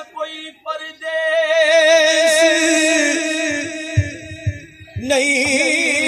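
A man singing a devotional Punjabi kalam unaccompanied, holding two long notes with a wavering ornament. In a short break about four seconds in there are a few low thuds.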